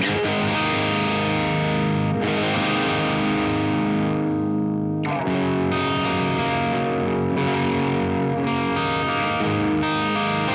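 Electric guitar played through an MXR Duke of Tone overdrive pedal, ringing distorted chords recorded direct with a Vintage 30 cabinet simulation. One chord is left to ring and fade about four seconds in, then a run of quicker chord strums follows.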